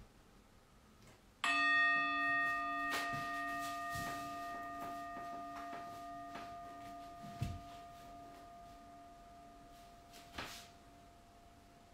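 A meditation bell is struck once about a second and a half in and left to ring as a long, slowly fading tone with several overtones, marking the start of a 3-minute hold. A few soft thumps come later.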